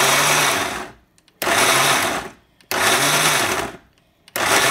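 Countertop blender chopping chunky salsa (tomatoes, onion, cilantro) in repeated pulses of about a second each, with short pauses between them. The motor spins up and winds down with each pulse.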